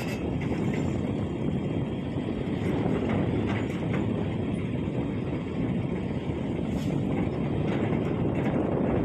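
Heavy diesel engine running steadily, a low even rumble with no sudden knocks.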